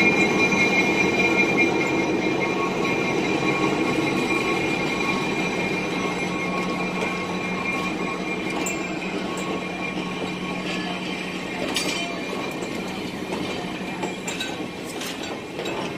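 Freight train rolling slowly past behind an Illinois Central diesel locomotive: the locomotive's steady engine hum fades gradually as it pulls away, while the cars' wheels rumble on the rails. Sharp squeaks and clanks from the rolling cars come in during the second half.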